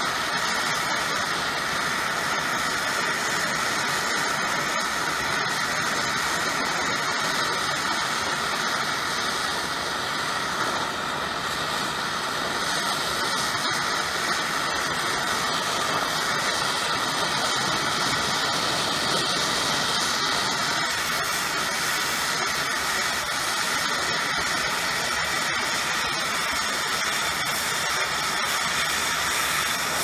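Handheld gas torch flame hissing steadily while it heats a copper tubing coil for brazing.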